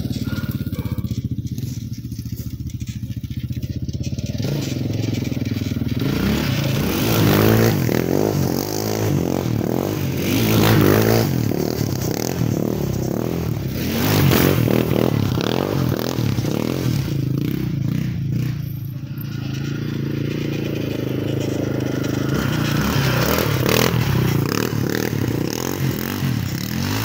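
Yamaha Raptor 660R ATV's single-cylinder four-stroke engine, breathing through a Lexx aftermarket exhaust with the stock airbox, revving up and down as it is ridden. It comes on the throttle hard several times through the middle, eases off for a few seconds, then pulls again near the end.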